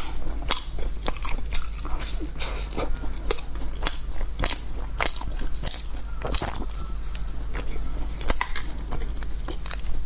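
A person biting and chewing food, with many sharp crackling clicks at an uneven pace.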